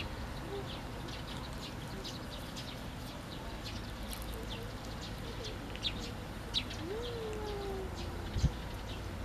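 A flock of sparrows chirping, many short high chirps scattered throughout. A few soft knocks come in the second half, the loudest near the end.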